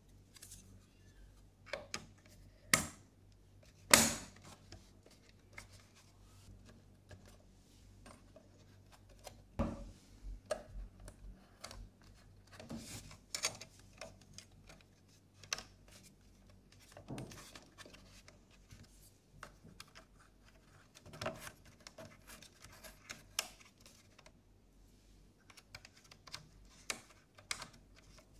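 Clicks, taps and light scraping of a 1979 National (Panasonic) mini TV's front panel and control knob being fitted by hand, with two sharp clicks about 3 and 4 seconds in and scattered softer clicks after.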